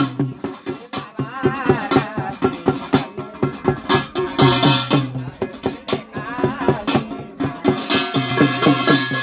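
Garhwali achhari jagar devotional music with a fast, steady beat. A low held note drops out near the start and comes back near the end, and a wavering higher melody line comes in twice.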